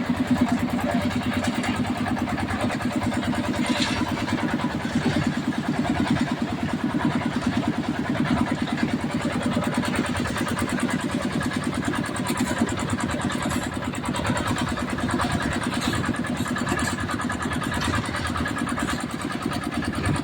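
Engine of a concrete mixer with lift hopper running steadily at an even speed.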